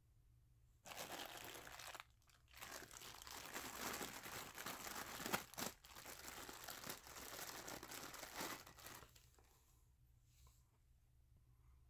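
Plastic packaging crinkling and rustling as it is handled and unwrapped, for about eight seconds with a short pause about two seconds in.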